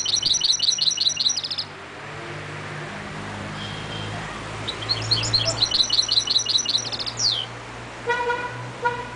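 Caged goldfinch × canary mule (mulet) singing two phrases of rapid high trills, the second ending in a falling note. Near the end a car horn sounds twice over a low, steady traffic hum.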